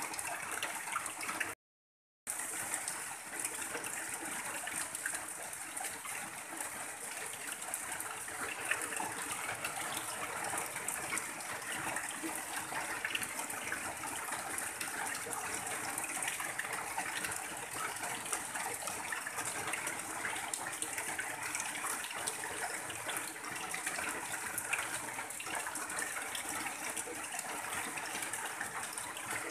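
Steady rain, with runoff pouring in a stream off the edge of a tin roof. The sound cuts out completely for about half a second around two seconds in, then resumes unchanged.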